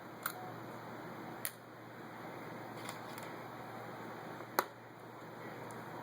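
A handful of small, sharp clicks from an Acer Aspire One 756 laptop's case and parts being handled during a hard-drive swap, the loudest about four and a half seconds in, over a steady hiss.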